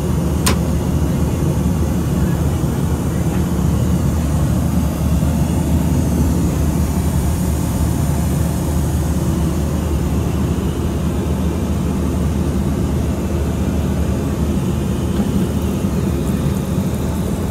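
Steady in-flight drone of a Boeing 737-900ER, engine and airflow noise, heard inside the rear lavatory. A single sharp click about half a second in comes as the lavatory door latch is slid.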